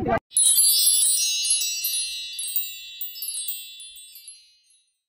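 Bright chime sound effect: many high tinkling tones struck together, then fading away over about four seconds.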